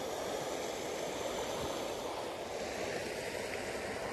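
Creek water running steadily through a shallow ford, an even rushing noise.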